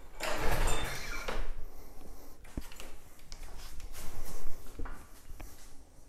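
Recoil starter rope pulled on a John Deere JA65 mower's 6 hp engine, turning it over without firing: two pulls, a long rasping one in the first second and a half and another about four seconds in. It cranks without spark, as the in-line spark tester shows none.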